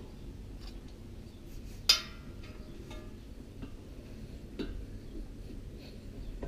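Adjustable spanner clinking on the brass regulator fitting of a propane cylinder as it is tightened: one sharp, briefly ringing metal clink about two seconds in, then a few faint clicks.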